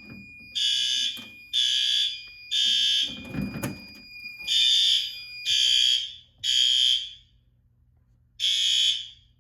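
Fire alarm horn sounding loudly in the temporal-three evacuation pattern: three short blasts about a second apart, a pause, three more, then one more near the end. It is set to high volume.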